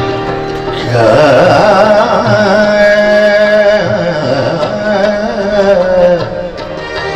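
Male ghazal singer holding one long, ornamented sung note for about five seconds, starting about a second in, over instrumental accompaniment with a regular low drum beat.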